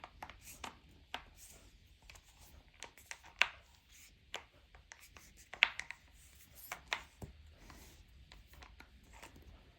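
Hands handling impact sockets and their case: scattered sharp clicks and knocks, the loudest about three and a half seconds in and again just after five and a half seconds.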